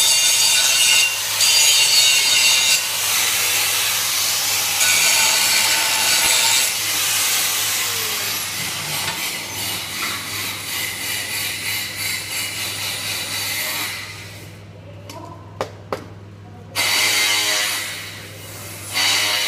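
Handheld angle grinder grinding steel, a harsh, loud grinding noise that eases off after about nine seconds and stops about two-thirds of the way through. After a couple of clicks, a short burst of harsh noise comes near the end, over a low steady hum.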